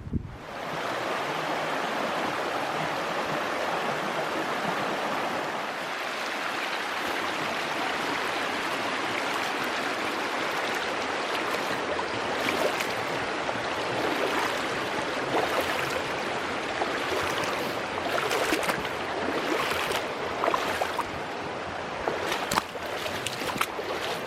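A steady rush of running water, like a mountain stream, starting abruptly. About halfway through, scattered sharp clicks and knocks stand out above it.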